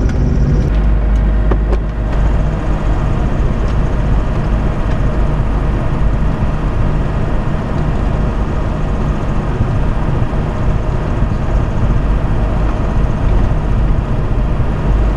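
Robin DR400 light aircraft's piston engine running steadily at low power with the propeller turning, heard from inside the cockpit, as the plane rolls along the runway after landing.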